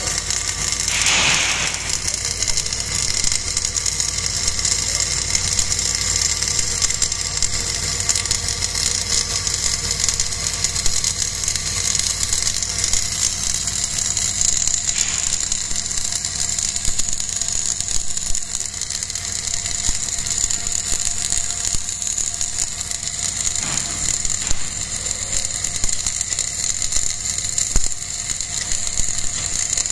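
Welding arc from a travelling fillet-welding carriage, crackling and hissing steadily in a continuous run, with a brief louder burst about a second in.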